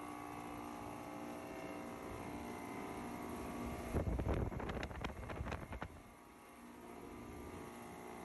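A steady machine hum made of several tones, fading out about halfway through. Wind buffets the microphone in a few gusts about four to six seconds in.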